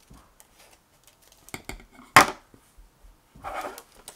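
Small hand scissors snipping through thin card stock, a few short snips with the loudest about two seconds in, then a brief rustle of the card near the end.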